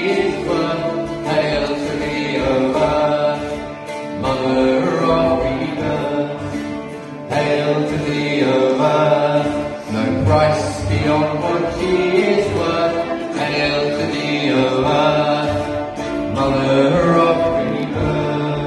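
Chanting in a sacred singing circle, accompanied by a plucked string instrument and a bowed violin.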